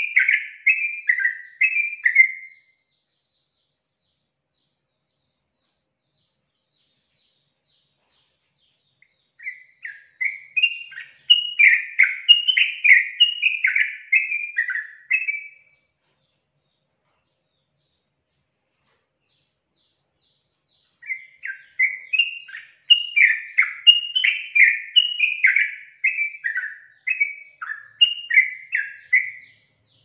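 Yellow-vented bulbul (trucukan) singing three bouts of rapid, bubbling chattering notes, each several seconds long, with pauses of about six seconds between them.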